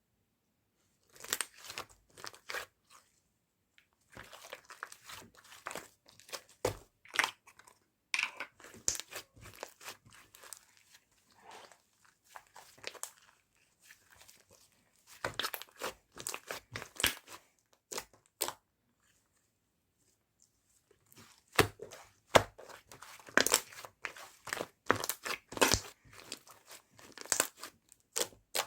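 Cookie slime being squeezed and pressed by hand, giving irregular clusters of crunchy crackles and wet clicks, with a pause of a couple of seconds past the middle.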